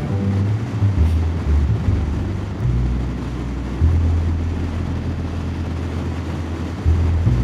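Harley-Davidson V-twin motorcycle engine running at road speed, its low note shifting as the throttle changes, with wind rushing over the microphone.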